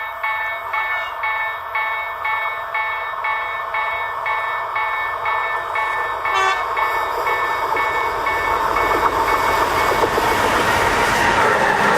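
Electronic level-crossing warning bell ringing about twice a second, until the rising noise of an approaching train drowns it near the end. A short train horn blast about six and a half seconds in, from the SU160 diesel locomotive.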